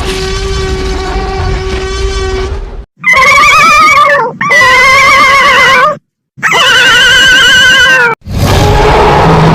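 Made-up prehistoric creature sound effects. A gorgonopsid's steady, even-pitched growl runs for about three seconds. Three short, wavering, high-pitched squealing calls for Diictodon follow, separated by brief silences, and about eight seconds in a deep, rough roar for Kaprosuchus begins.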